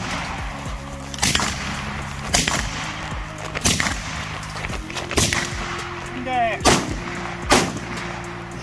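Short-barreled AR-style rifles firing single shots, about six unevenly spaced over the stretch, each a sharp crack. Steady background music plays underneath.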